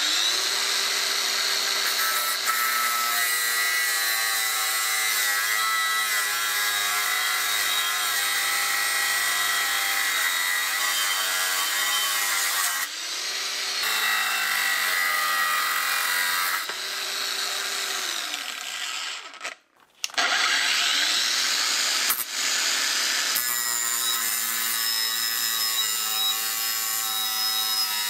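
Metabo WB 18 LTX brushless cordless angle grinder cutting steel with a thin cut-off disc: a steady high whine over a grinding hiss, the pitch wavering as the disc bites. It cuts out briefly about two-thirds of the way through, then runs and cuts again.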